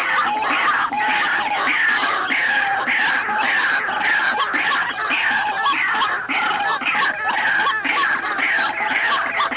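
White-breasted waterhen calling: harsh, croaking notes repeated a few times a second without a break.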